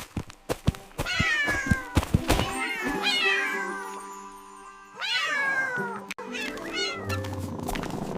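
Several drawn-out cat meows, each falling in pitch, set over a dance music track with a steady beat.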